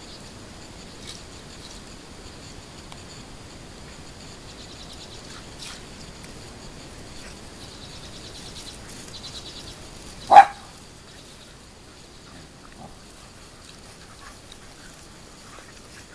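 A dog barks once, short and loud, about ten seconds in, while several dogs play rough together.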